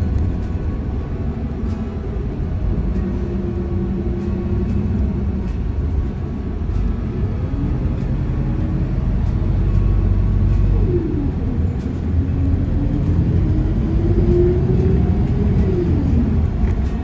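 Bus engine and drivetrain heard from inside the passenger cabin: a steady low rumble, with a whine that rises and falls in pitch several times as the bus speeds up and slows.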